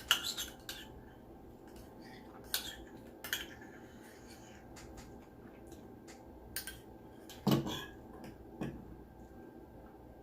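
Eating sounds: a handful of sharp clicks and taps, with the loudest near the start and about seven and a half seconds in.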